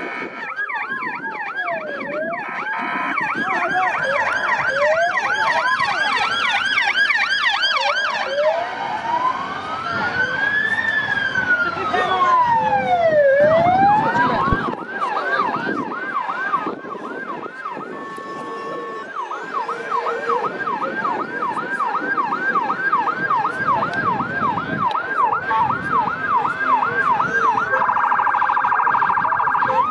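Several sirens sounding at once from a passing vehicle convoy. Slow rising-and-falling wails overlap in the first half, and fast yelps of about two cycles a second take over later. Near the end comes a short steadier tone, then a siren winding up.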